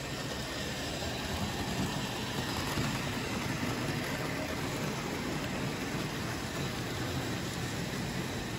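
Märklin H0 model trains running on the layout: a steady whirr of small locomotive motors and wheels rolling over the track.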